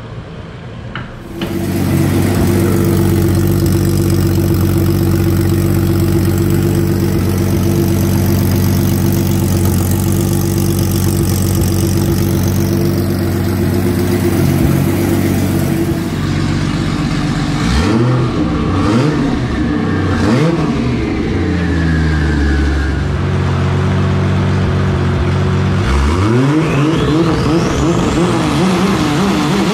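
Turbocharged 2JZ inline-six of a Toyota Supra running straight out of a hood-exit dump pipe (a 'hater pipe'). It comes in suddenly about a second in and holds a steady, loud note. From about 18 seconds in it is revved in repeated blips that rise and fall in pitch, with Haltech anti-lag engaged near the end.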